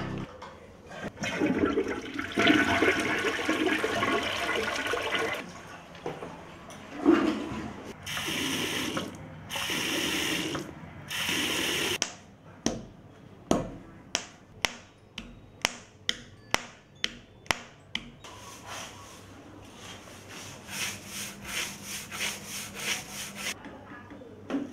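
A flush toilet flushing with a rush of water, then water running in three short bursts. A run of sharp clicks follows, about two a second.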